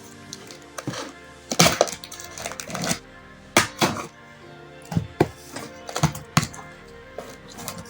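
Background music, over a series of sharp knocks and clatters from a nonstick cookware set being unpacked and handled; the loudest knocks come about one and a half and three and a half seconds in.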